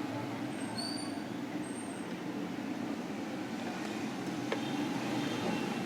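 Steady low background noise, like distant road traffic, with a single faint click about four and a half seconds in.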